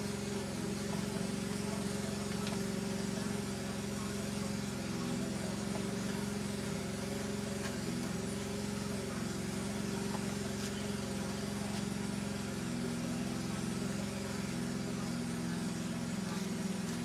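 An engine running at a steady, even speed, a constant low drone with no change in pitch.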